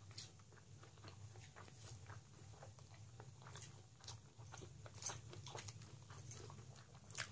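A person chewing a mouthful of rice pilaf and mutton, with soft wet mouth clicks and smacks coming every fraction of a second, the loudest about five seconds in. A faint steady low hum runs underneath.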